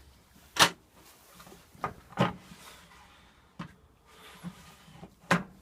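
Five sharp knocks and clunks of something being handled, the loudest about half a second in and near the end, over a faint low hum.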